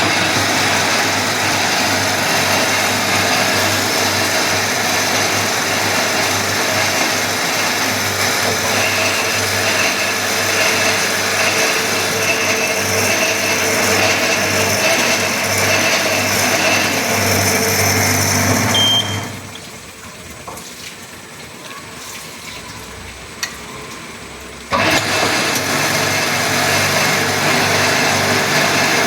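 Automatic drilling and tapping machine running after being switched on, a loud steady motor hum and whine. Partway through it goes much quieter for about six seconds, then comes back suddenly at full level.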